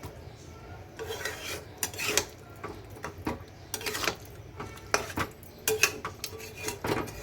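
A cooking spoon scraping and clacking against the pan of tomato chicken curry in irregular strokes.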